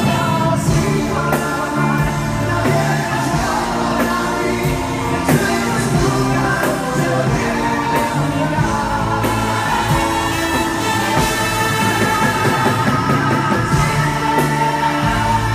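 Live concert music: male voices singing into microphones over a full band with a saxophone section, steady and loud throughout.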